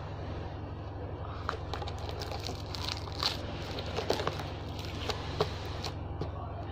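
Slime being handled and squished, giving small scattered pops and crackles, a few sharper ones after the middle, over a steady low hum.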